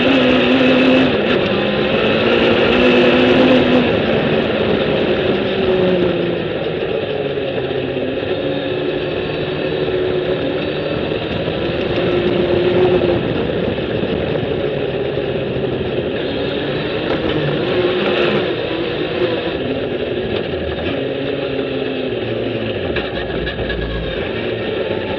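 Suzuki Hayabusa inline-four engine of a sand rail running hard under load, heard on board, its note rising and falling as the car speeds up and eases off, loudest in the first few seconds.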